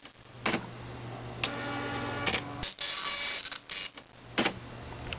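Panasonic KX-P1090 dot matrix printer printing a graphic image: the print head buzzes across in passes broken by brief pauses, with a sharp clack every second or so and a steady motor hum underneath. It is a slow, halting print while the printer works through the image data.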